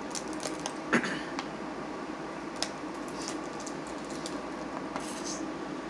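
Steamed blue crabs being picked apart by hand: small sharp cracks and clicks of shell, the loudest about a second in, with wet squishy picking and eating sounds.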